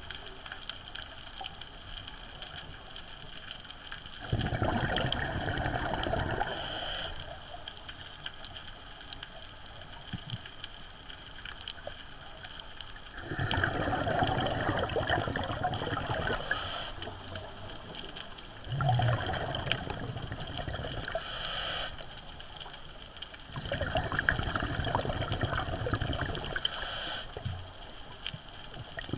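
Scuba diver's regulator breathing underwater: four slow breaths, each a rush of exhaled bubbles lasting about three seconds that ends with a short hiss.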